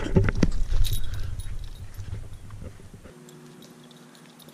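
Low rumble and thumps from a moving handheld camera, with footfalls on dry grass, fading over about three seconds, then a faint steady hum.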